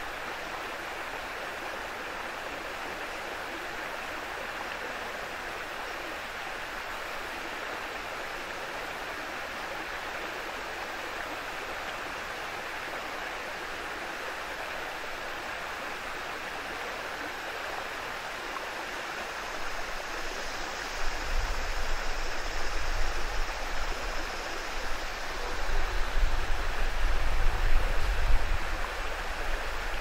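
Shallow stream water spilling over a low rock ledge in a small waterfall, a steady, even rush. From about twenty seconds in, an uneven low rumble comes and goes beneath it.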